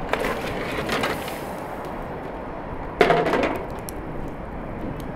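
Raw lamb pieces slide and splash from a metal basin into a large aluminium pot of water, followed about three seconds in by a loud, ringing metal clank of the basin against the pot. A wood fire crackles under the pot throughout.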